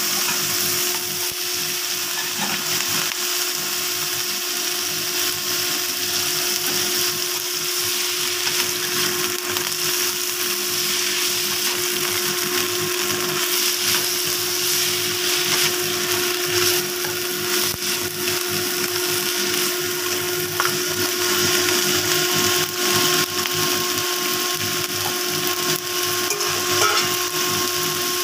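Steady sizzle of black fungus, garlic and flowering chives stir-frying in a wok, under a constant motor-like hum, with the odd scrape of the spatula.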